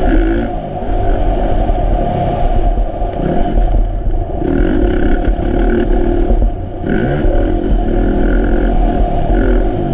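Kawasaki KX450F motocross bike's single-cylinder four-stroke engine under hard throttle, recorded onboard. The throttle is chopped briefly about half a second in and again just before seven seconds, and the engine revs back up each time.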